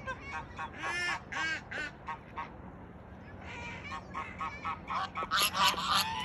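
Geese and ducks calling, a run of short honks and quacks; the calls pause briefly midway, then come thicker and louder toward the end.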